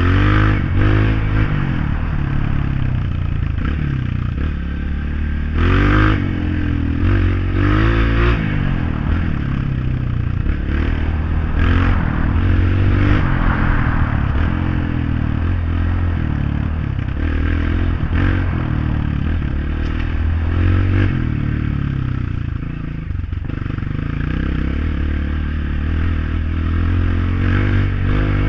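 Honda CRF off-road motorcycle engine under way: the revs rise and fall repeatedly, climbing sharply around six and eight seconds in, over a constant noisy rumble from the ride.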